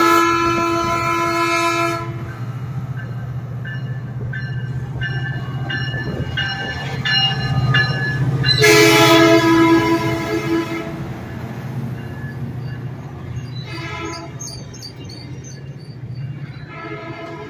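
Metrolink MP36 diesel locomotive running past close by, its engine a steady low drone, with its horn sounding loudly. One long blast comes near the start and another about halfway through, with shorter blasts later and near the end. Between the first two blasts come short, repeated tones about twice a second.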